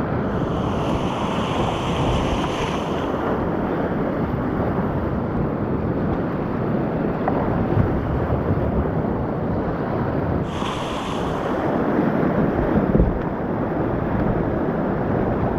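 Whitewater of a mountain creek rushing steadily around a kayak, with two brief stretches of brighter splashing: one at the start and one about ten seconds in.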